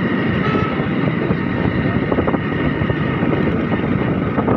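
Motorcycle engine running steadily while riding along, with wind noise on the microphone.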